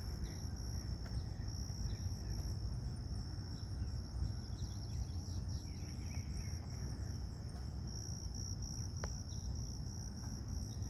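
Insects trilling in a steady, high-pitched outdoor chorus, over a low background rumble.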